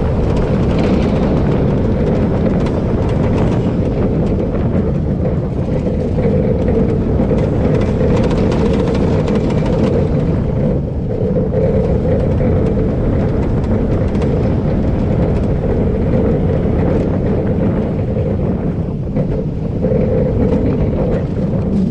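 Intamin hydraulic-launch roller coaster train running at speed through its circuit: a loud, steady rumble of the wheels on the steel track, mixed with wind rushing over the on-ride camera.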